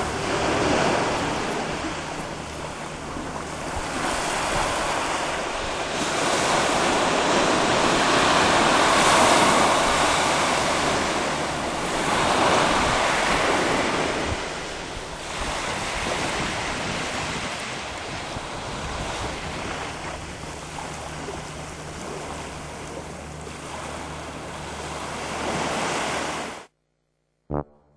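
Small surf waves washing up a sandy beach, a noisy wash that swells and eases over several seconds, with wind buffeting the microphone. The sound cuts off suddenly near the end.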